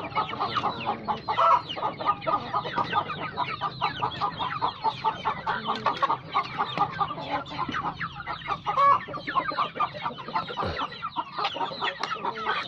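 A flock of young chickens clucking continuously, many short calls overlapping, as feed is put out for them.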